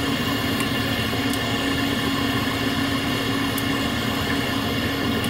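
Handheld butane torch burning with a steady, even hiss of flame.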